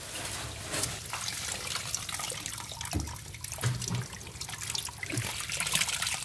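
Water splashing and dripping as hands scoop a mass of climbing perch fry out of a shallow fish tank, with small irregular splashes and drips throughout.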